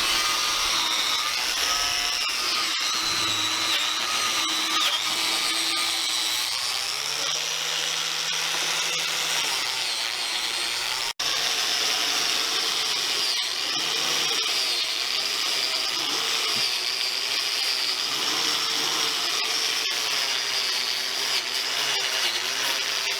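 Angle grinder fitted with a wire wheel, running and stripping seam sealer off sheet-metal seams. The high whine wavers and sags in pitch as the wheel is pressed into the work, with one brief break about eleven seconds in.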